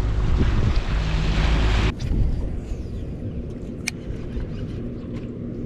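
Boat outboard motor running under way, with a loud rush of wind and water over a steady low engine hum, which cuts off abruptly about two seconds in. After that comes a quieter background with a few light ticks and one sharp click about four seconds in, as a baitcasting reel is handled.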